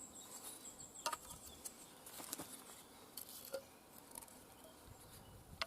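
Faint, scattered clicks and light taps of sharpening gear being handled while the micro-mesh is got ready for the axe.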